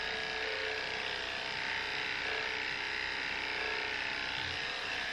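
Electric dog grooming clippers running with a steady, even buzz while clipping a Jack Russell terrier's belly fur.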